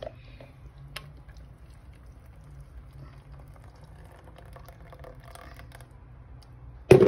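Thick blended dal (lentil purée) pouring in a stream into a pan, a faint soft liquid sound, with a single click about a second in and a short louder sound right at the end.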